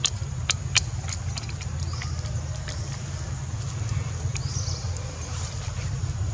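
Outdoor ambience: a steady low rumble, with three sharp clicks in the first second and a faint high chirp about five and a half seconds in.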